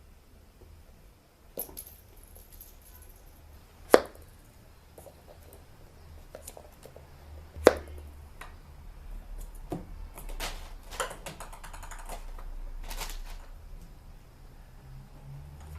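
Sharp knocks and clicks: two loud single knocks about four seconds apart, then a quicker run of lighter clicks and taps.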